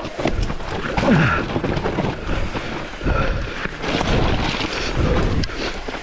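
Wind rushing over the microphone of a mountain biker's camera, with the rattling knocks of the bike on a rough trail.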